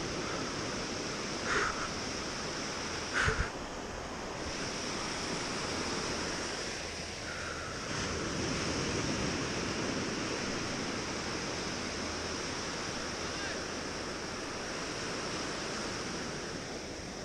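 Ocean surf washing steadily with wind on the microphone, and two short knocks about one and a half and three seconds in.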